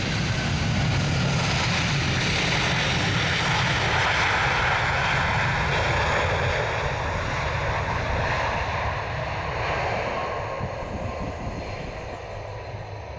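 Airbus A330-323 airliner's Pratt & Whitney PW4000 turbofans running loud during the landing rollout, the jet noise fading steadily over the last few seconds as the aircraft moves away.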